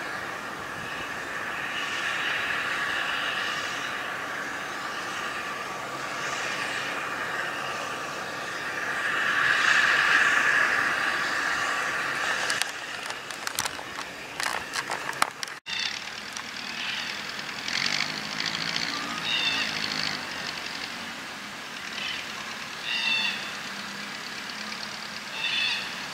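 Steam locomotive W 945 standing with steam hissing steadily, swelling loudest about ten seconds in. A spell of scattered knocks follows, then an engine running low with short high chirps over it.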